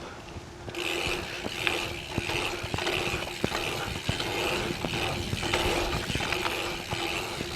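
Mountain bike riding down a rough dirt trail: tyre and wind noise with many sharp knocks and rattles over the bumps, and a high buzz that comes and goes. It gets suddenly louder under a second in as the bike gets going.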